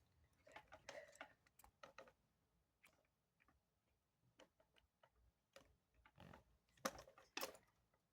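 Faint, scattered clicks and taps of a plastic tackle box being handled, with two louder knocks near the end.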